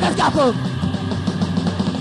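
Punk rock band playing a raw demo recording with electric guitar, bass and drums. A vocal line slides down in pitch and ends about half a second in, leaving the band playing on without singing.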